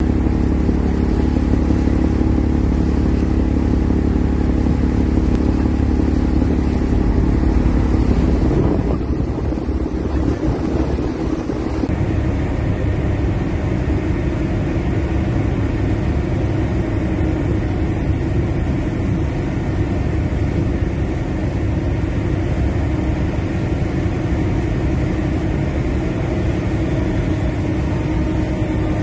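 Boat engine running steadily under a steady wash of water noise. The engine note changes about nine seconds in, becoming rougher for a few seconds, then settles again.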